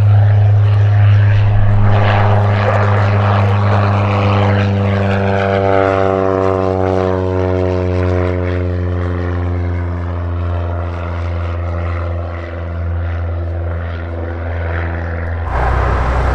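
SIAT 223 Flamingo's four-cylinder Lycoming engine and propeller flying past at low level: a loud, steady drone whose pitch falls steadily as the plane goes by. Near the end the sound switches abruptly to a closer, lower engine note.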